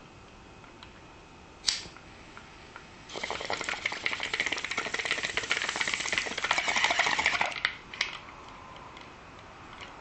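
A disposable lighter struck once, then a glass bong bubbling steadily for about four and a half seconds as smoke is drawn through its water, ending with a sharp click.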